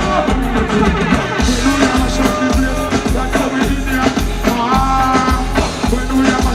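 Live reggae band music at concert volume, with a heavy bass line that pulses about once a second under drums and pitched melodic parts.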